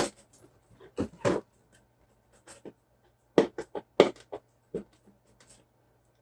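Handling of an RC car kit's cardboard parts boxes and packaging: scattered rustles and light knocks, the loudest a pair about three and a half and four seconds in.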